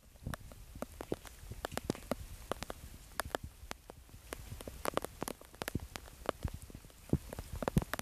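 Rain falling, with many separate drops tapping irregularly on a hard surface close by over a steady low rush.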